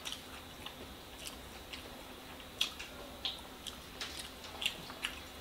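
Close-up chewing of a mouthful of rice: irregular wet mouth clicks and lip smacks, the sharpest about two and a half seconds in.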